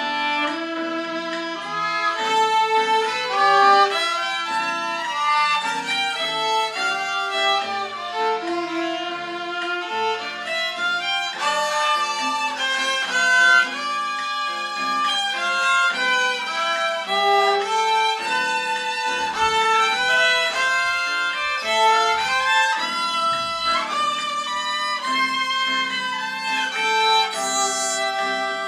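Two violins bowed together in a duet, playing a melody in a continuous run of sustained notes.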